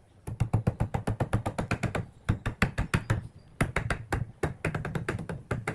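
Claw hammer striking quickly on a wooden branch held against a tree stump, about eight sharp knocks a second, in three runs with two short pauses.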